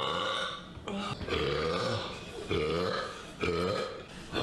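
A person belching deeply, four long burps one right after another, each lasting just under a second.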